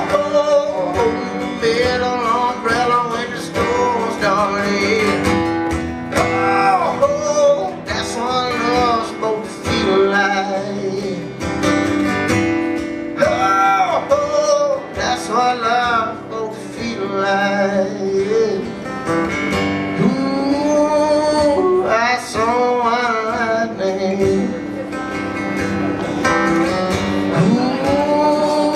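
Live solo acoustic guitar, strummed, with a male voice singing over it.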